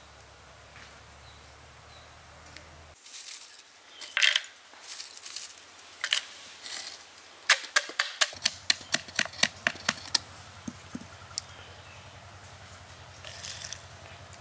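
A stick pounding lumps of charcoal inside a bamboo tube to crush them: a few scattered knocks, then a quick run of about a dozen sharp strikes, around four a second, about halfway through.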